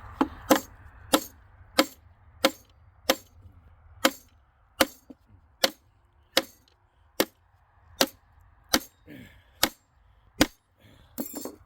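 Hammer striking metal about sixteen times in a steady rhythm, a little over one blow a second, each blow with a short ring. The hammer is being used to drive out a stuck contact leg from a large circuit breaker being torn down for scrap.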